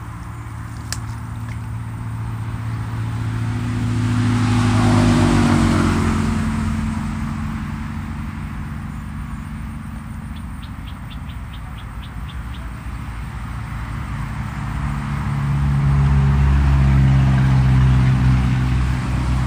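Two road vehicles passing by, one about five seconds in and another near the end. Each swells up and fades away, and the first one's engine note drops as it goes past.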